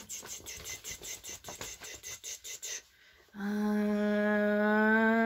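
A fast, even rattling of about seven clicks a second for nearly three seconds. After a short pause, a woman holds one long hummed note that rises slightly at the end, building suspense before the next animal is revealed.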